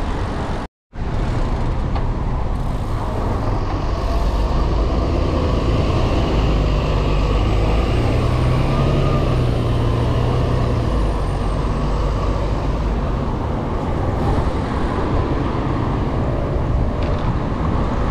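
Steady road traffic noise heard from a moving bicycle: a continuous rush with heavy low rumble and a louder engine hum from passing vehicles in the middle. The sound cuts out completely for a moment under a second in.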